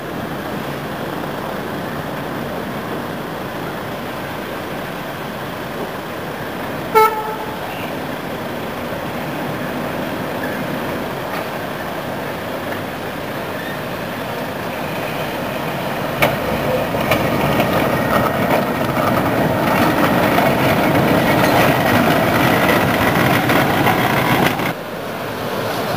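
Steady street and traffic noise with one short horn toot about seven seconds in. From about two-thirds of the way through, an old double-decker tram's running noise on the rails grows louder as it draws close, then cuts off abruptly.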